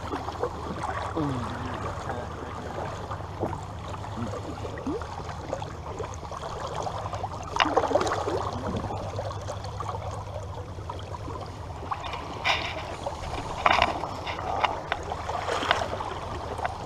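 Running river water around a small fishing boat, with a few splashes and knocks, one about halfway through and several more near the end.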